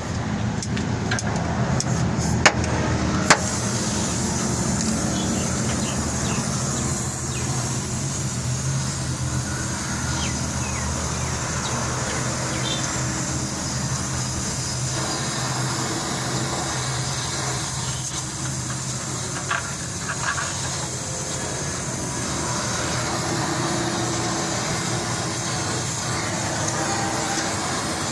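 Gas welding torch hissing steadily as it welds a car's exhaust silencer from underneath, over a steady low hum. Two sharp clicks come about two and a half and three seconds in, just before the hiss fills in.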